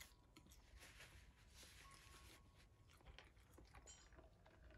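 Near silence with faint chewing: a person eating smoked rabbit meat.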